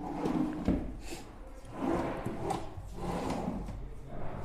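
Laminate-finished drawers of a TV unit being slid open and pushed shut, several short sliding rubs with a few knocks, the loudest as a drawer closes at the end.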